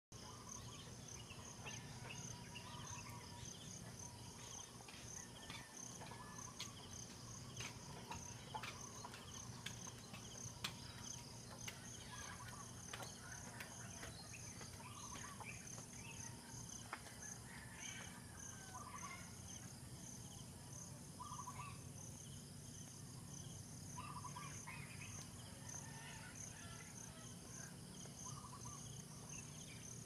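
Rural morning ambience: insects chirp steadily in an even, pulsing rhythm. Short calls from another animal repeat every few seconds over them, along with a low steady hum.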